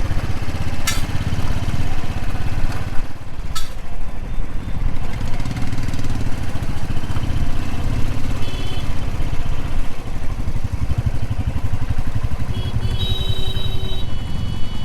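Motorcycle engine running steadily while riding through traffic, heard from the rider's camera. A brief high-pitched tone sounds near the end.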